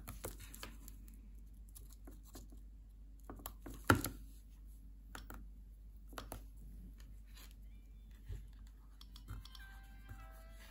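Faint scattered clicks and taps of fingers pressing an iPod's click wheel and centre button and brushing the plastic wrap under it, with one sharper knock about four seconds in, over a steady low hum. Near the end, faint music leaks from an earbud held near the microphone.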